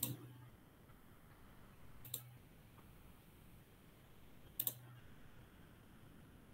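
Three sharp single clicks at a computer, about two seconds apart, each with a short low hum under it, over a faint steady hiss.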